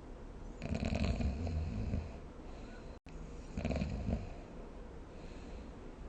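A sleeping person snoring: a long snore starting about half a second in, then a shorter one about three and a half seconds in. A brief cut to silence falls between them.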